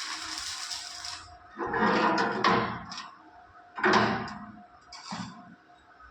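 Steady electric arc welding hiss that cuts off about a second in, then several loud metallic clanks and knocks, the loudest about two and four seconds in.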